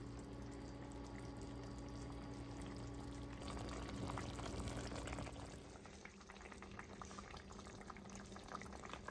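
Faint bubbling and popping of a stockpot of birria broth simmering on the stove, with small pops that come more often in the second half. A faint steady hum sounds under it for the first half.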